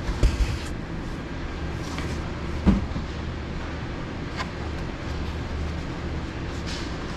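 Supermarket background: a steady low hum with a few short knocks and thumps, the loudest just after the start and near three seconds in.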